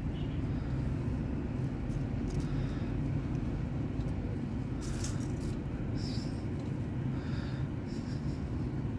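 A steady low rumble of background noise, with a brief rustle about five seconds in and a few faint, short high-pitched chirps near the end.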